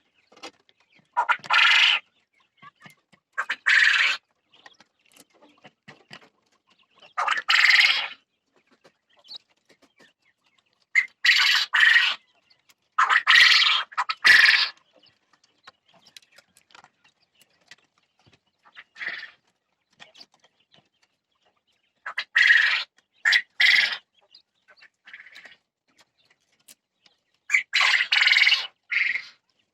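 Jumbo coturnix quail calling: short bird calls every few seconds, some in quick runs of two or three, with quiet gaps between.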